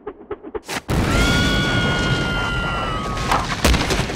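Cartoon explosion sound effect of rock bursting apart: a quick run of knocks builds for under a second, then a sudden loud blast about a second in becomes a rumbling crash for about two seconds. A high steady tone is held over the crash and sags as it ends, and a few heavy thuds of falling rock follow near the end.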